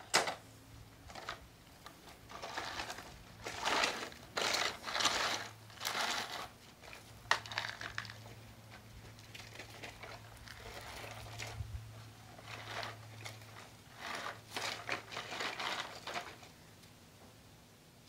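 Gravel crunching and scraping in irregular bursts as a toy front loader's bucket digs and pushes through loose driveway gravel.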